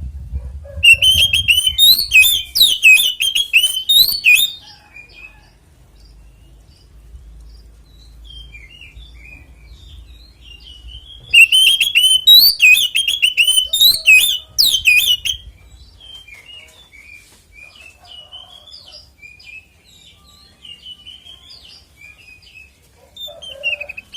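Oriental magpie-robin (kacer) singing a loud, fast fighting song: two bursts of rapid, varied high notes, each about three to four seconds long, starting about a second in and again about eleven seconds in, with softer scattered chirps between them.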